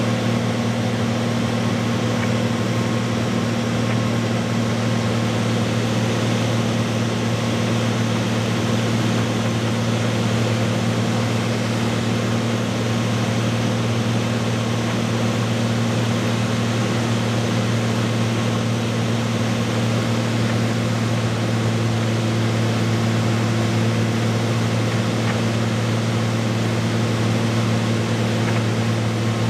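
Piper light aircraft's piston engine and propeller heard from inside the cockpit on final approach: a steady, even drone over rushing airflow, with no change in power.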